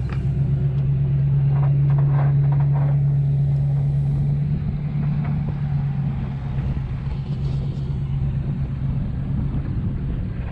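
A vehicle engine running steadily with a low drone, loudest in the first few seconds and then easing off slightly.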